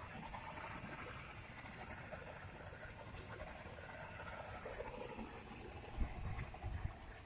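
Waste-to-fuel pyrolysis machine running with a steady, faint hissing and bubbling, typical of the heated reactor and its condensing line; two low knocks come about six and seven seconds in.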